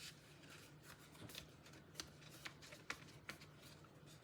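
Faint handling of cut cardstock pieces: light paper rustles with a few small taps and clicks, the sharpest about two and three seconds in, over a low steady room hum.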